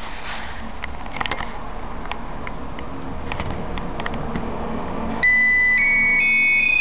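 Fluke OMNIScanner 2 cable tester sounding a run of electronic beeps that step up in pitch, starting about five seconds in. The beeps signal the end of a patch-cord test that has failed on return loss. Before them there are only a few faint clicks.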